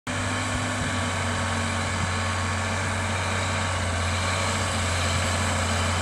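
Massey Ferguson 6480 tractor's six-cylinder diesel engine running steadily under load while pulling a plough.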